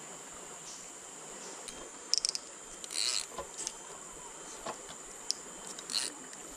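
A steady high insect drone over the even rush of fast river water, with a few light clicks from a fishing rod and spinning reel being handled in the middle of the stretch.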